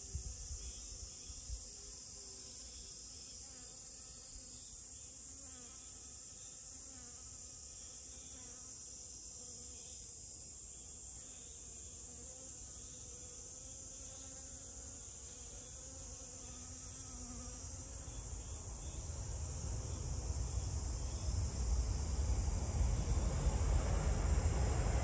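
A steady, high insect chorus with the faint, wavering buzz of honeybees flying around the flowers. Over the last several seconds a low rumble from an approaching vehicle swells and becomes the loudest sound.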